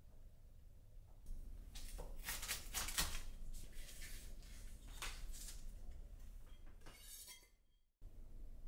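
Tableware being handled: a series of light clinks and knocks from dishes and utensils, ending abruptly near the end.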